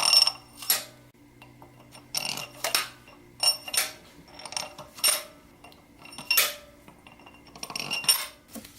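Steel cylinder-head bolts clinking and ringing against metal as they are handled, oiled and dropped into the bolt holes of a Subaru EJ22 turbo boxer engine's cylinder head. About eight separate sharp clinks, each with a short high ring.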